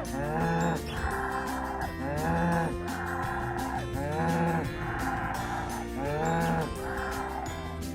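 Cow mooing four times, each call rising and then falling, at very even spacing about every two seconds, over steady background music.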